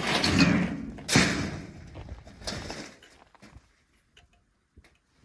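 A loud bang about a second in, amid noise that fades away over the next two seconds, followed by near quiet with a few faint clicks.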